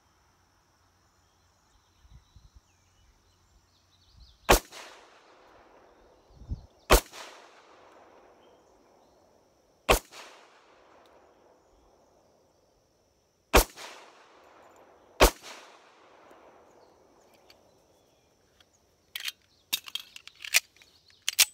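Five shots from a Rock Island Armory 1911 pistol in .45 ACP, fired slowly a few seconds apart, each trailing off in a long echo. A quick run of sharp clicks near the end.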